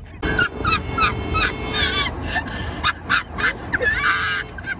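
Women shrieking with laughter, a quick run of short, high-pitched squealing laughs about three a second.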